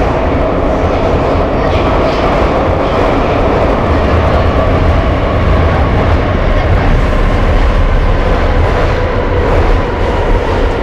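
A Budapest Metro line 3 train of Soviet-built 81-717/714 cars running through the tunnel, heard from inside the car: a loud, steady rumble of wheels on rails with a faint steady whine over it.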